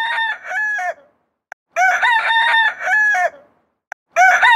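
Cartoon rooster-crow sound effect. The same crow repeats identically about every two and a half seconds.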